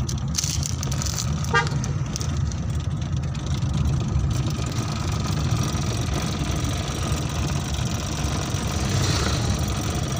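Car engine and road noise heard from inside the cabin while driving, a steady low rumble. A brief horn toot sounds about one and a half seconds in.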